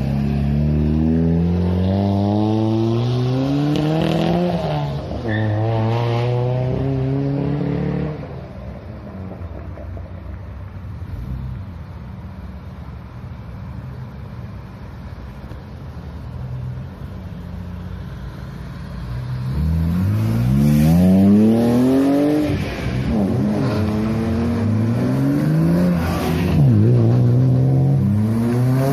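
Car engines revving hard as cars accelerate away one after another, each pull rising in pitch and then dropping back at a gear change. There is a quieter lull of about ten seconds in the middle before more revving pulls.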